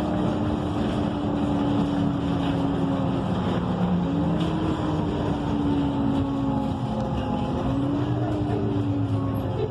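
Cummins Westport ISL G natural-gas engine and Allison automatic drivetrain of an ENC EZ Rider II transit bus, heard from inside the cabin while under way. It gives a steady hum whose pitch dips and steps back up about four seconds in, and swells again near the end.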